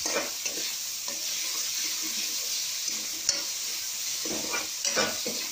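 Sliced mango frying in hot oil in a metal kadai, sizzling steadily while a spatula stirs it, with irregular scrapes of the spatula against the pan.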